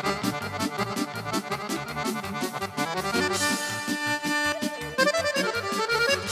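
Instrumental Romanian folk dance music from a wedding band: a lead melody over a fast, even beat. A little after halfway the beat thins and held notes come to the front.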